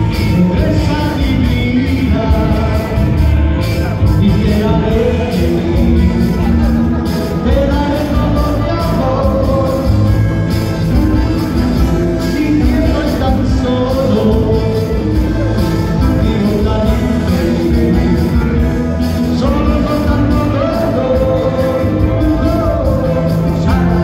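Live band playing a song: a male singer singing into a microphone over electric guitar and drums, amplified through a PA.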